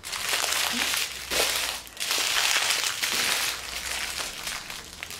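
Small plastic sachets of diamond-painting drills crinkling and rustling as a hand scoops them up in handfuls, in two spells with a short break about two seconds in, easing off near the end.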